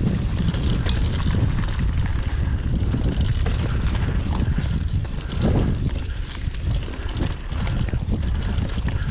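Wind buffeting the microphone on a moving mountain bike: a loud, steady low rumble, with the faint noise of the ride underneath.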